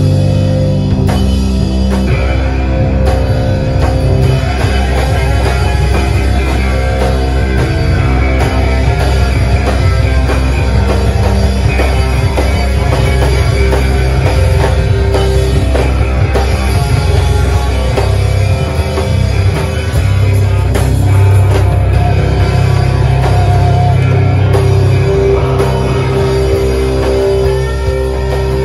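Live rock band playing loudly through amplifiers, with a drum kit and electric guitars.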